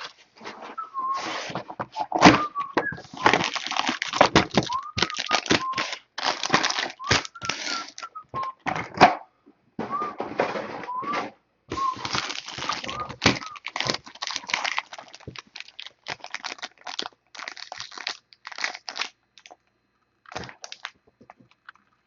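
Sealed trading-card boxes being opened by hand: the plastic shrink wrap is torn and crinkled in a rapid run of rustling rips with short squeaks as the plastic stretches, and the handling thins out to scattered rustles in the last few seconds.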